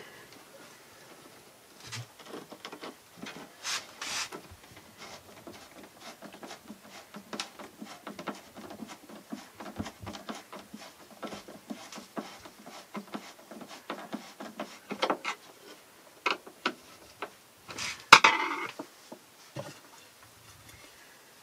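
Hand screwdriver turning wood screws in wooden trim strips, a run of small scraping clicks, with a louder clatter of wooden trim strips being handled near the end.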